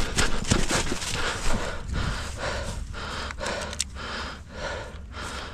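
Heavy, rapid breathing of a person winded from running, with footsteps crunching through dry leaves in the first second or two and a few sharp clicks a little over three seconds in.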